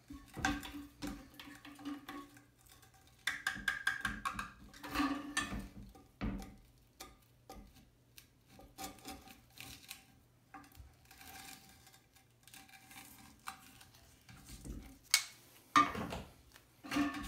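Vise-Grip GrooveLock groove-joint pliers gripping and turning the plastic circular lock nut of a toilet flush valve to remove it: irregular clicks, scrapes and knocks of the jaws on plastic and against the porcelain tank, with a few sharper clacks near the end.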